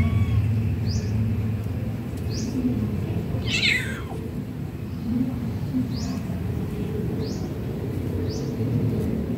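A cat meows once, a single call falling in pitch, about three and a half seconds in. Faint short high chirps repeat about once a second over a steady low rumble.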